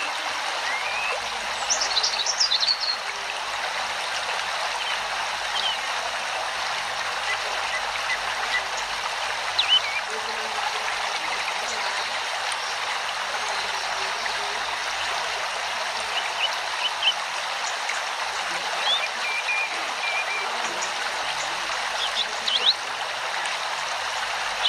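Steady rushing, water-like hiss, with a few faint brief chirps or voices over it.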